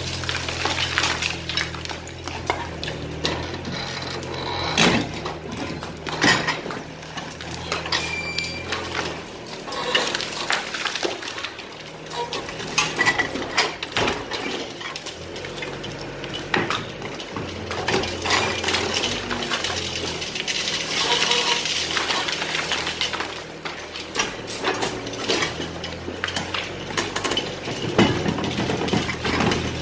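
Excavator engine running under an irregular clatter of knocks and clinks as demolition rubble breaks and falls.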